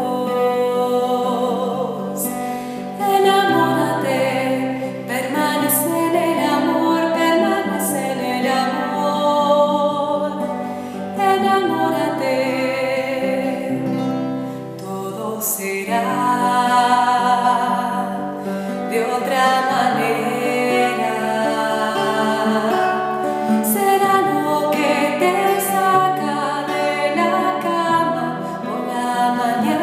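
A woman singing a Spanish religious song, accompanying herself on a classical nylon-string guitar.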